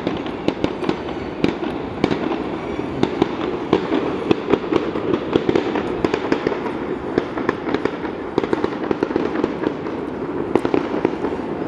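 Dense, irregular crackling pops, several a second, over a steady rushing noise.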